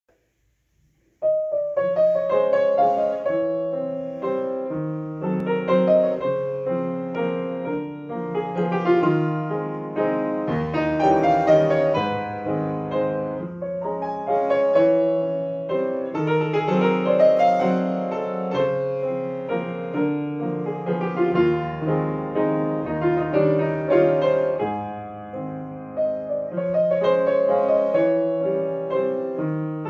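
Upright piano playing a waltz, starting about a second in.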